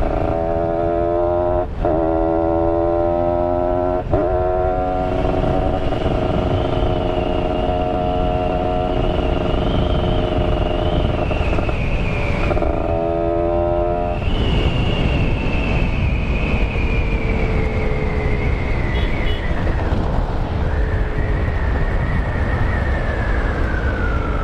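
Two-stroke motorcycle engine running while riding, with brief dips in the engine note about two and four seconds in and the pitch slowly falling over the second half, over steady wind rumble.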